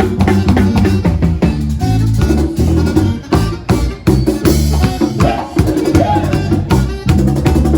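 Instrumental passage of band music: a steady drum-kit beat with a prominent bass line, no singing.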